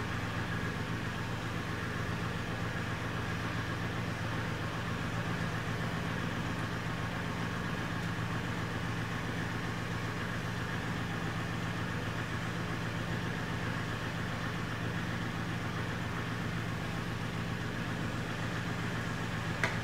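A steady mechanical hum, like a motor running, holding one constant pitch with several tones and no change in level.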